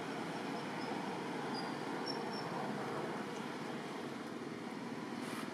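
Steady outdoor background noise, an even hiss-like rumble, with a few short faint high chirps.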